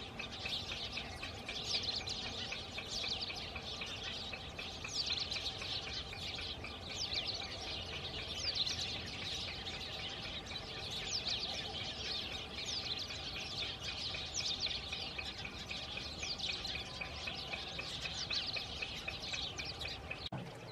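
A busy chorus of small birds chirping, many quick high notes sweeping downward and overlapping without a break, over a faint steady low background hum. It cuts off abruptly near the end.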